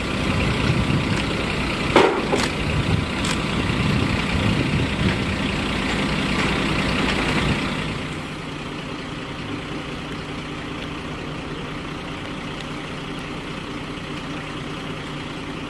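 Heavy fire-truck engine idling steadily, with a few sharp knocks about two to three seconds in. The level drops a little about halfway through.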